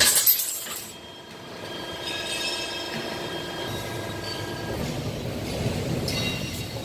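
Hydraulic guillotine shear at work: a loud metallic clatter right at the start that dies away within about a second, then the machine running with faint steady tones, and another short clatter near the end.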